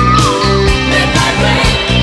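Instrumental passage of a pop-rock song: a band with steady drums and bass under a held lead melody line that bends and ends shortly after the start.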